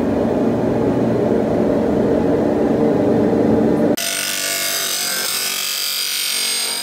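Surface grinder working a steel knife blank: a steady low grinding noise, then, after a cut about four seconds in, a high steady whine as a narrow wheel grinds the fuller groove into the blade.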